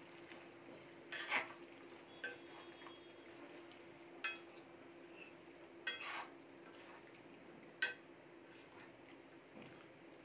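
Perforated steel spatula stirring raw papaya and potato chunks in a steel kadai, mixing in a spice paste, with about five sharp metal clinks against the pan spread through the stirring. A faint steady hum runs underneath.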